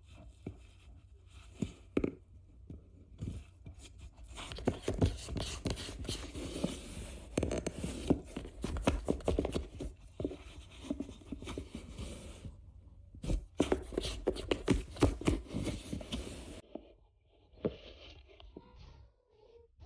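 Cat scratching and scraping at the cut edge of a hole in a cardboard box: a dense run of scrapes and tearing crackles that starts about four seconds in and stops suddenly near the end.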